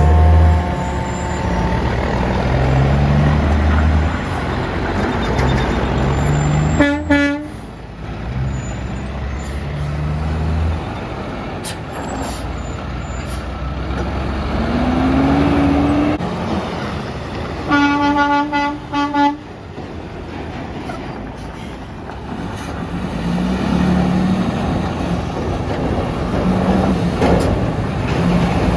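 Heavy diesel trucks passing close by with their engines running, one engine rising in pitch as it pulls away. A truck horn gives a short single-tone blast about seven seconds in, then sounds again in two or three quick toots around eighteen to nineteen seconds.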